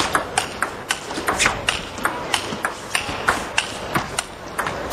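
Table tennis rally: the celluloid ball clicking sharply off the bats and the table in quick alternation, about four clicks a second.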